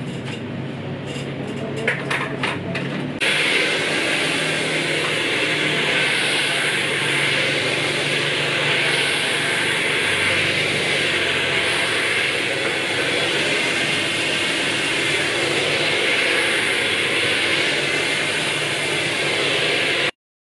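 Handheld hair dryer switched on about three seconds in and blowing steadily, after a few sharp clicks; it cuts off abruptly near the end.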